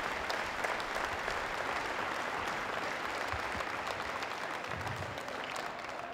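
Crowd applauding steadily, easing off near the end.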